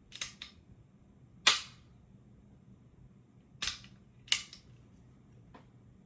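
Sharp metallic clicks and snaps from an AR-15 fitted with a forced-reset trigger being dry-fire function checked: the hammer dropping and the trigger and selector working. The loudest snap comes about a second and a half in, with a few more clicks near four seconds and one fainter near the end.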